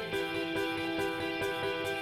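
Background music: sustained instrumental chords over a soft, steady beat, changing chord right at the start.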